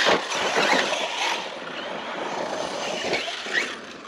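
Arrma Fireteam RC car's brushless electric motor whining as the car drives across dirt, the pitch rising and falling with the throttle, fading near the end.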